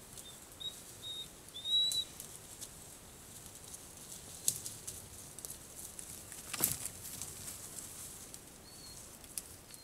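Rustling and light clicks of animals moving through forest undergrowth, with one sharp snap about two-thirds through. A few short, high, rising chirps come near the start and once more near the end.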